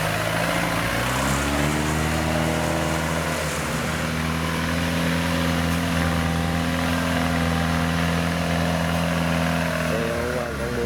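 Farm machine's diesel engine running, rising in pitch between about one and two seconds in as it revs, then holding steady.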